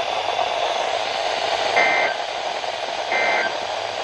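Weather radio receiver hissing with static, with two short digital data bursts of two alternating tones, about a second and a half apart, starting near the middle: the SAME end-of-message code that closes an emergency alert broadcast.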